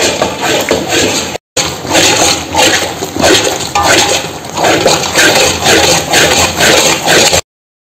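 A long ladle stirring and slapping thick, sticky wheat halwa in a large metal kadai: wet squelching and sloshing strokes about twice a second. The sound breaks off briefly once and cuts off suddenly near the end.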